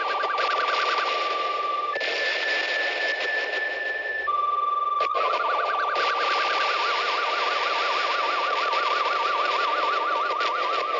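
Lo-fi electronic noise piece: a steady high electronic tone over a dense bed of hiss. The tone jumps up in pitch about two seconds in, drops back about four seconds in, and after a click begins to warble quickly up and down.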